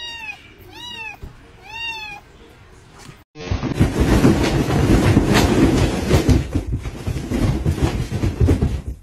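A young kitten meows three times in quick, high-pitched calls. After about three seconds this gives way to a loud, continuous crackling rustle from a crinkly fabric cat tunnel being moved about.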